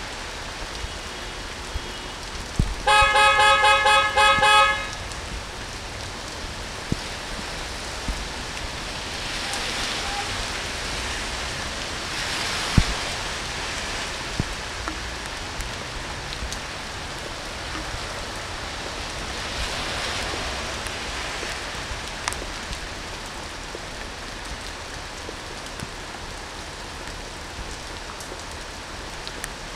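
Steady heavy rain falling on a city street, swelling louder twice. About three seconds in, a vehicle horn sounds in a quick string of short toots lasting about two seconds, and a single sharp knock comes about thirteen seconds in.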